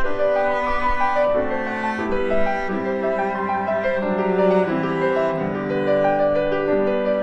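Slow instrumental background music: sustained bowed-string notes, cello-like in the low range, over piano.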